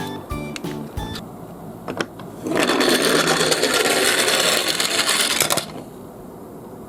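Toy garbage-truck minicar rolling down a slope, its small wheels and body rattling. The loud, dense rattle starts about two and a half seconds in and lasts about three seconds.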